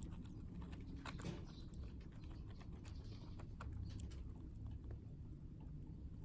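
Faint scattered clicks and soft rustles of a Eurasian tree sparrow working a mealworm down with its beak on a paper towel.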